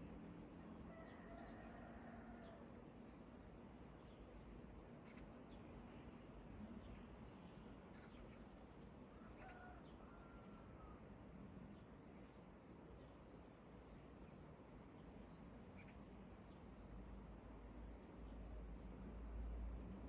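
A steady, high-pitched insect trill without a break, with a few faint, scattered bird chirps behind it.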